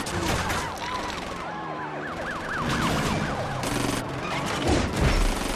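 Pistol shots fired in quick bursts near the start and again toward the end, the loudest near the end. Between them, high wails rise and fall rapidly, like a siren.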